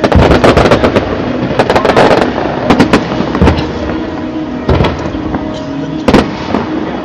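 Aerial fireworks going off: a rapid volley of bangs and crackling for the first two and a half seconds, then scattered single loud bangs, one of the sharpest a little after six seconds.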